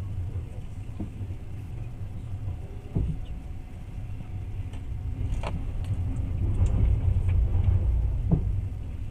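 Moving passenger train heard from inside the carriage: a steady low rumble with a few sharp knocks, the strongest about three seconds in. The rumble grows louder in the second half.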